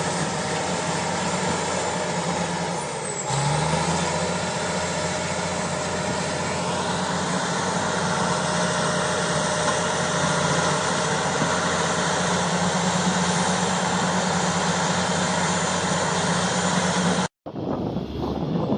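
Shantui SD22 bulldozer's diesel engine running steadily, its pitch stepping up about three seconds in as it revs and then holding. Near the end the engine sound cuts off abruptly and a different, windy sound follows.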